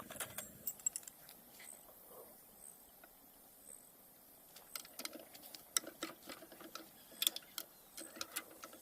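Scattered light clicks and taps of small tools or parts being handled, in a cluster at the start and a busier run through the second half.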